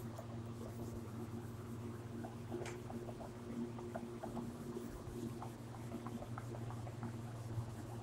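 A felt whiteboard duster rubbing across a whiteboard, wiping off marker in faint, irregular strokes. A steady low hum from a running fan lies underneath.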